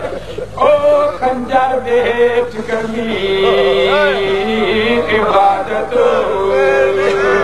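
A man's voice chanting a melodic religious recitation, a zakir's chant, with long held notes that waver in pitch.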